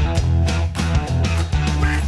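Background rock music with guitar and bass over a steady drum beat.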